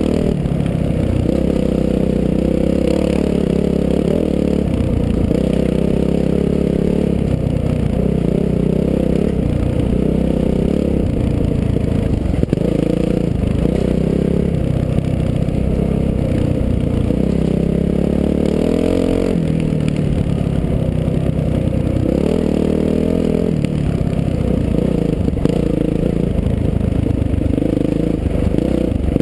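Dirt bike engine running hard while riding, its pitch rising and falling again and again with throttle and gear changes.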